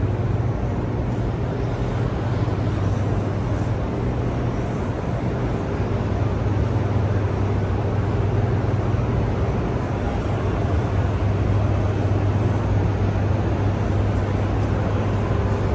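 Steady low hum and drone of the hydroelectric generator hall, the generators running, with an even rushing noise beneath the hum.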